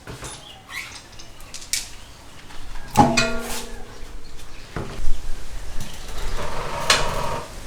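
Metal parts being handled: scattered clinks and knocks, with one sharp metallic clank about three seconds in that rings briefly, and a spell of rattling near the end.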